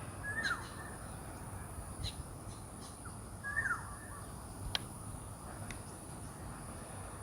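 Two short bird calls about three seconds apart, each gliding downward in pitch, over a steady background hum with a thin constant high whine and a few faint clicks.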